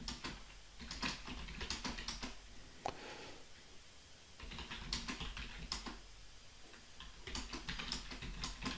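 Computer keyboard being typed on in short runs of keystrokes with brief pauses between them.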